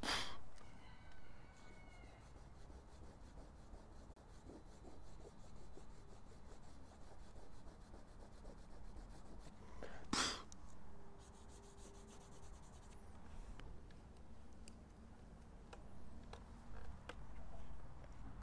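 Faint rubbing and scraping of a tool on drawing paper as charcoal smudges are touched up. Two short knocks stand out, one right at the start and one about ten seconds in.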